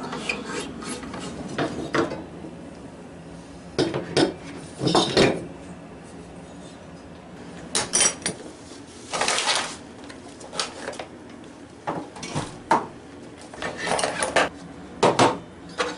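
Scattered clanks and clicks of a Porter-Cable dovetail jig's metal template and fittings being handled and set down on a workbench, with a hard plastic tool case being handled in between. The knocks come in short irregular bursts.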